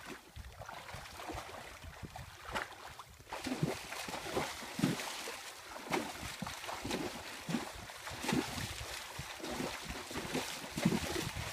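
A horse pawing at shallow lake water with a front hoof, making a run of irregular splashes, roughly one a second, starting about three seconds in.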